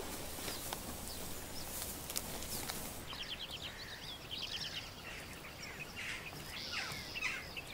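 Soft rustling haze with scattered clicks, then, about three seconds in, birds chirping and trilling, several calls overlapping in quick rapid runs.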